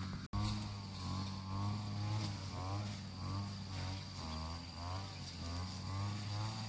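An engine running steadily, with a steady high insect whine and a higher tone that wavers up and down over it.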